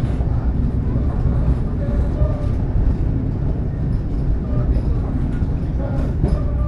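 Steady low rumble inside a moving passenger train coach: the train's wheels running on the rails.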